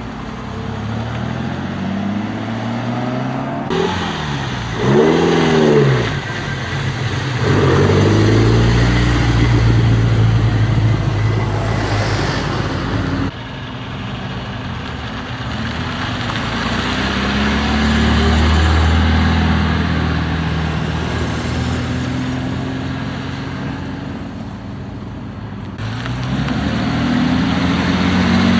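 Classic cars driving past one after another, engines accelerating, the engine note rising and falling and the sound swelling and fading as each car goes by.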